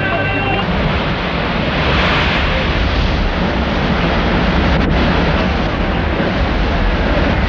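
Sea water churning and rushing, heard as a steady, even noise.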